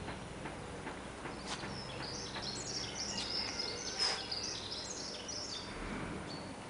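A songbird singing a rapid run of short, high chirping notes for about four seconds over a steady background hum, with a sharp click about four seconds in.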